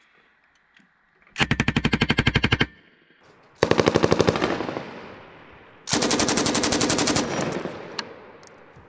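Belt-fed M240 7.62 mm machine gun firing three short bursts of rapid, evenly spaced shots, each about a second long, with the report echoing and fading after each burst.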